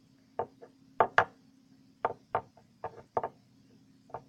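Light, irregular tapping: about ten short taps in four seconds, some in quick pairs, over a faint steady hum.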